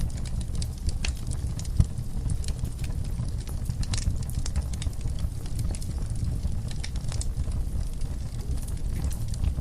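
Wood fire burning in a fireplace: logs crackling with frequent small pops over a steady low rumble of flame, with one sharper pop about two seconds in.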